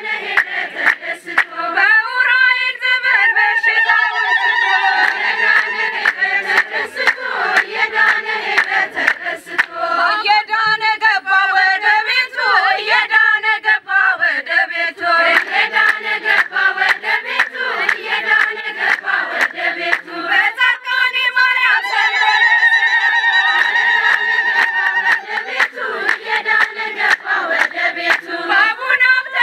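A group of women singing an Ethiopian Orthodox hymn together, with hand claps throughout.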